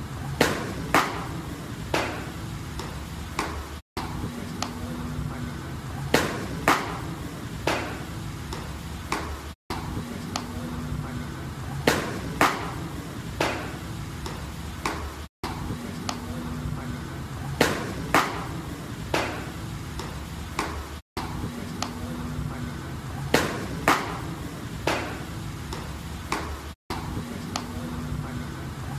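Fastball popping into a catcher's mitt in an indoor bullpen: a sharp crack with a short echoing ring, followed by lighter knocks. The same pattern comes again about every six seconds, with a brief dropout each time.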